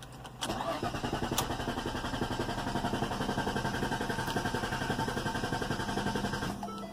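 Starter cranking the 2012 Ford Fusion's 3.0 V6 in an even, pulsing rhythm for about six seconds without the engine catching, then stopping. This is the long-crank no-start that the mechanic suspects comes from the crankshaft position sensor or its wiring harness.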